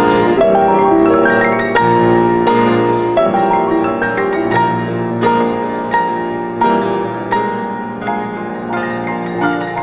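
Solo piano playing a steady, flowing passage of struck notes, each left ringing, growing slightly softer toward the end.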